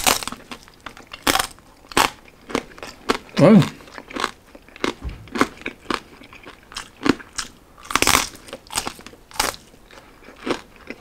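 Close-up biting and chewing of crispy roasted pork belly (liempo), a steady run of sharp crackly crunches from the crisp skin, roughly one every half second to second. A brief hummed voice sound comes about three and a half seconds in.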